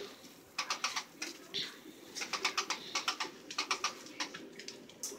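A litter of young puppies scrambling over puppy pads in a crate: quick bursts of crinkling and claw scratching, mixed with soft squeaky little puppy calls.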